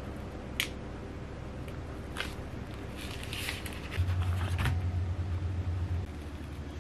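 A piping bag of cream being squeezed and handled, with light clicks and a crinkly rustle of the bag. A low hum comes in about four seconds in and stops two seconds later.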